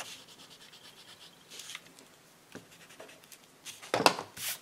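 An eraser rubbed quickly back and forth over paper, removing marks from a scrapbook page; the strokes come fast and even for about a second and a half, then in a few scattered rubs. About four seconds in there is a louder rustle and knock of paper being handled on the desk.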